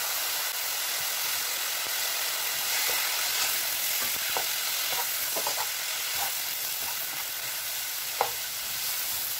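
Chicken, vegetables and freshly added egg sizzling steadily in a frying pan while being stirred and tossed with a spatula. Scattered clicks of the spatula against the pan, with one sharper knock near the end.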